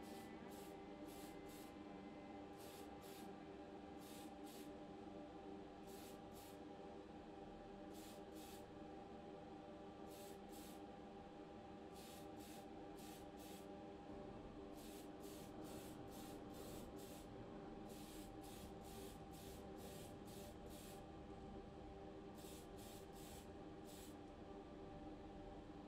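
Tamiya TS-50 Mica Blue aerosol spray can sprayed in dozens of short hissing bursts, often in quick pairs, with a steady low hum underneath.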